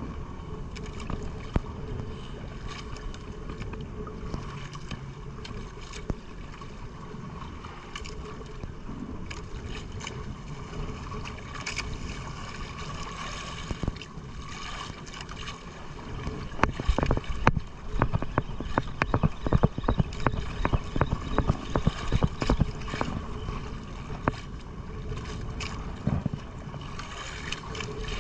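A small outrigger fishing boat at sea: a steady mechanical hum under wind on the microphone and splashing water. Through the second half comes a run of sharp knocks and rattles.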